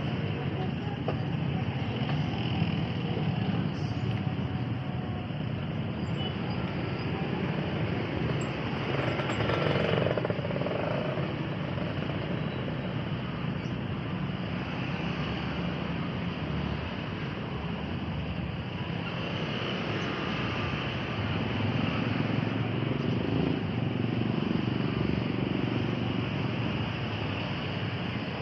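Busy street traffic: motorbike and car engines running and passing close, in a steady mix that swells briefly about ten seconds in.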